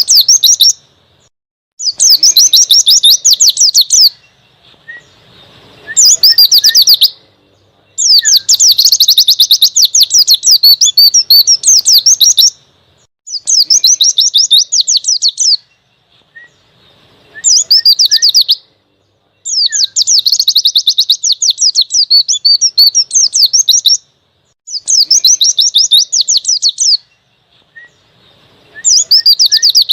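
White-eye (pleci) singing its fast 'ngalas' wild-type song in about nine loud bursts of rapid, high twittering, each one to four seconds long with short pauses between.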